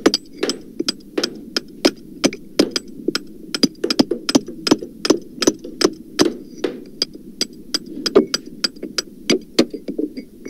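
Hammer blows struck in a fast, uneven stream, about three a second, over a steady low hum. The hammering has been pitched down to sound deeper than real hammers.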